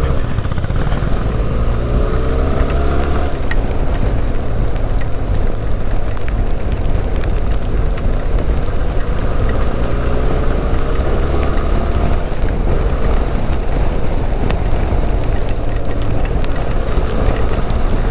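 Benelli TRK 502's parallel-twin engine running under way on a ride, with the revs rising twice: near the start and again about nine seconds in.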